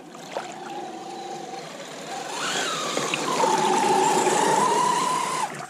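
Radio-controlled scale crawler driving through a muddy, water-filled rut: its electric motor and gears whine, rising in pitch about two seconds in, then holding steady and growing louder, over splashing water. The sound cuts off suddenly near the end.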